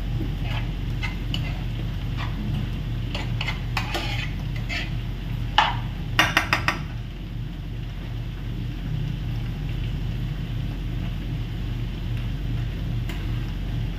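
Metal utensils stirring and scraping in frying pans of sautéed spinach and frying chicken, with scattered clinks against the pans and a quick run of four taps about six seconds in. A steady low hum runs underneath.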